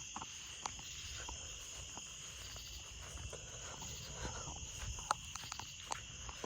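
Steady high-pitched insect chorus, holding an even drone throughout, over a low rumble, with a few faint clicks scattered through.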